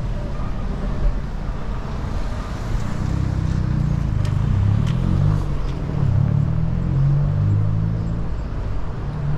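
Street traffic: a motor vehicle's engine running close by, a low hum that grows louder about three seconds in and wavers in pitch, over a steady low rumble.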